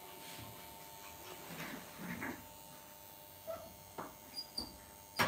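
Quiet room with a steady electrical hum, a few soft rustles, then several light clicks in the second half, the sharpest near the end.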